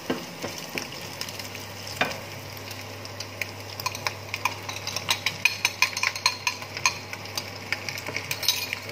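Minced pork sizzling in a frying pan while a wooden spatula stirs it, then a spoon scraping and clinking against a ceramic bowl as egg-coated cold rice is tipped into the pan, with many quick taps from about four seconds in.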